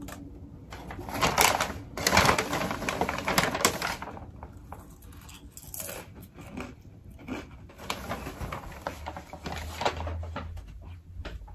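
Paper bag of popcorn rustling and crinkling as a hand reaches into it, loudest for a few seconds about a second in, then quieter rustles and handling noise.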